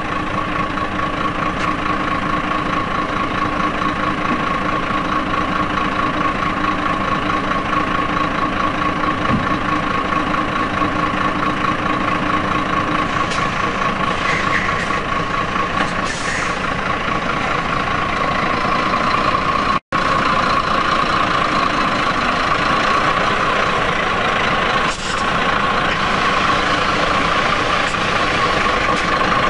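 Iveco truck running steadily at a standstill, a continuous mechanical noise. The sound drops out for an instant about two-thirds of the way through.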